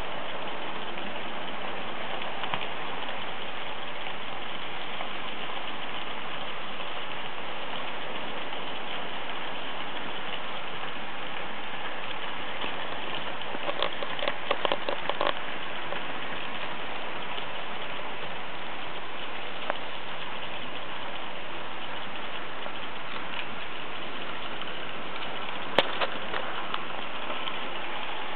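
Märklin H0 model trains running on the layout: a steady rolling rattle of wheels and motors on the track, with a quick run of sharp clicks about halfway through and one sharp click near the end.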